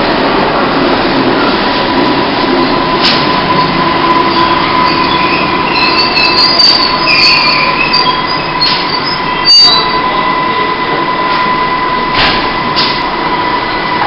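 London Underground Metropolitan line A Stock train running into the platform and slowing to a stop, with a steady high whine and high squeals from the wheels and brakes as it slows. Several sharp clicks, the loudest about two-thirds of the way through.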